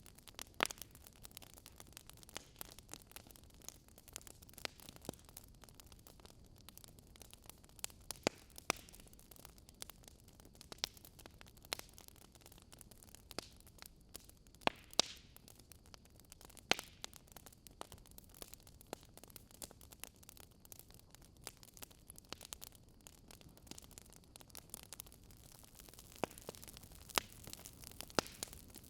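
Wood fire crackling: irregular sharp pops and snaps, a few of them louder, over a faint steady hiss.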